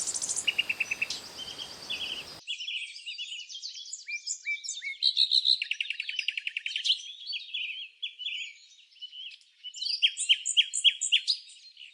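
Songbirds chirping and trilling, with many short calls overlapping and a fast run of repeated notes in the middle. A steady background hiss under the birds stops abruptly about two seconds in.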